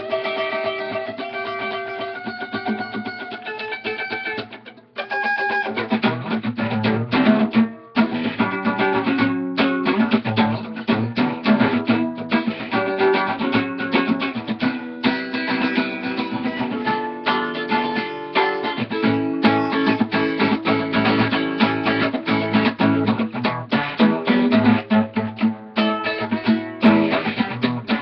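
Solo acoustic guitar improvised by hand: sparse single picked notes for the first few seconds, then after a short break near five seconds, faster and denser picking with chords.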